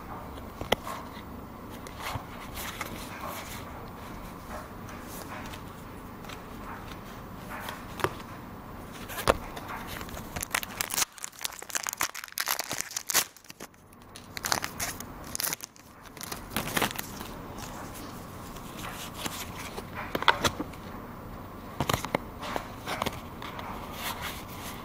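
Pokémon trading cards being handled and flipped through: scattered sharp clicks and card slaps, with a busier stretch of crackling and rustling about halfway through.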